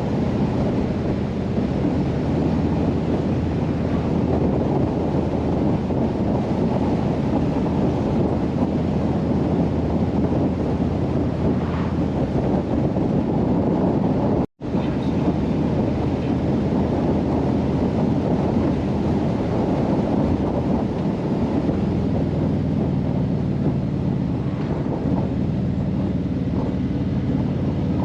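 Harley-Davidson touring motorcycle's V-twin engine running at road speed, mixed with heavy wind rushing over the microphone. The engine note rises near the end as the bike accelerates.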